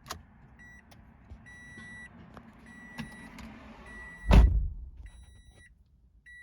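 Toyota Prius c's cabin warning chime beeping in a steady repeat, one high half-second tone about every 1.2 seconds, with a few clicks and a heavy thump about four seconds in.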